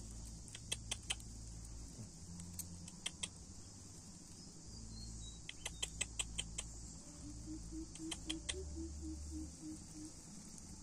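Steady high buzz of field insects, broken by small sharp clicks in short quick runs, the busiest run about six seconds in.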